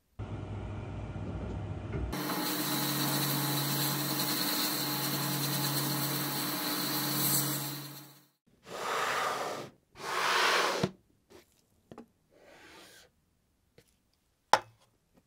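Sandblast cabinet's blast gun blowing grit onto a weathered wooden baseball bat to strip its surface: a steady hiss that gets louder about two seconds in and stops at about eight seconds. After it come two short rustling noises, a few light ticks and one sharp click near the end.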